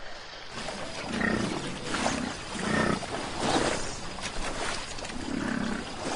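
American bison bellowing, a series of about five low, rough roars, each under a second long.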